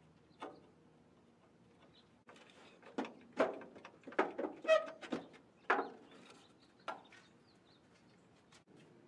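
A handful of sharp knocks and clatters, some with a short ring, as long strips are moved around inside a truck cab and bump against its sheet-steel panels.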